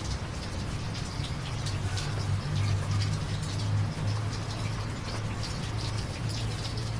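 Steady rain falling, with individual drops pattering and ticking on surfaces over a continuous hiss, and a low steady hum underneath.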